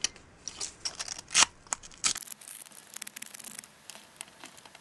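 Small piece of sandpaper scraped in short, irregular scratchy strokes over a miniature's base and the underside of a piece of slate, roughening both surfaces so the glue will grip.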